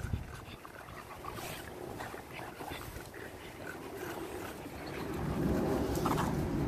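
Two English bulldogs play-wrestling and mouthing each other: low, rough dog noises with faint scuffling, growing louder about five seconds in.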